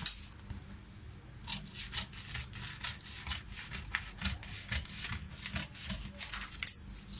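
Large tailor's shears cutting through kraft pattern paper in a run of short crisp snips, two to three a second. There is a sharp knock just at the start.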